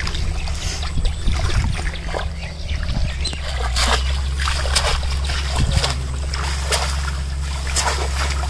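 Shallow pond water splashing and sloshing in a string of short splashes as people wade through it and a bamboo polo fish trap is pushed down into it. A steady low rumble runs underneath.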